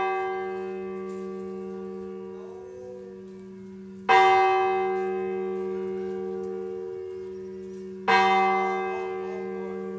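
Large Catholic church bell tolling slowly: it rings on from a strike at the start, then is struck twice more about four seconds apart, each stroke ringing loud and slowly fading with a deep steady hum underneath.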